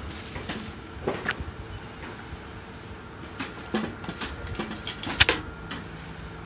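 Refuelling handling noise: a plastic fuel cap unscrewed from a brush cutter's tank and the cap of a metal fuel can opened, giving scattered clicks and knocks, the sharpest a little after five seconds, over a low steady background rumble. The engine is not running.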